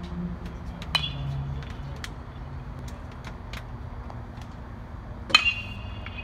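Baseball bat hitting balls in batting practice: two sharp hits with a brief ringing ping, one about a second in and a louder one near the end, with fainter clicks between.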